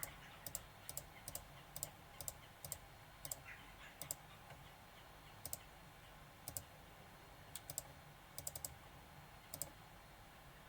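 Faint computer mouse clicks, irregularly spaced and often in quick pairs, as the buttons of a simple calculator program are clicked to test it.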